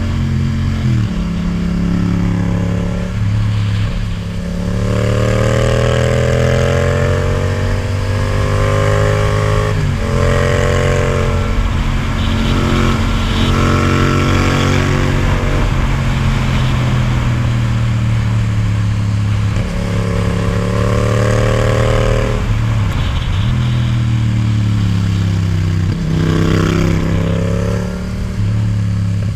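Yamaha MT-07's parallel-twin engine, fitted with an Akrapovic titanium exhaust, under way with revs climbing and falling several times as the throttle is opened and rolled off, with brief drops in the engine note between pulls. Wind rush runs underneath.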